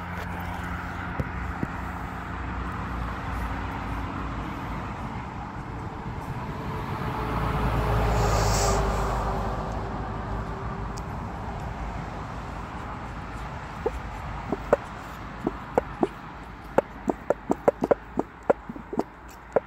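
Outdoor wind noise and rumble on the microphone, swelling to a peak about eight seconds in with a faint hum that slowly falls in pitch, then a run of small sharp clicks and taps over the last few seconds.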